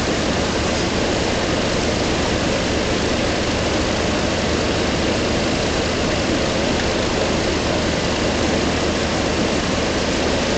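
Steady machinery hum over a constant rushing noise, unchanging throughout, with no distinct knock, grunt or other event.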